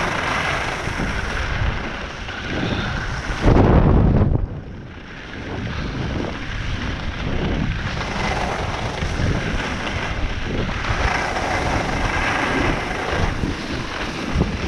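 Wind buffeting the microphone of a chest-mounted action camera on a skier moving downhill, mixed with the hiss of skis sliding and carving on groomed snow. The noise swells and eases with the turns. A loud, deep gust of wind rumble comes about three and a half seconds in.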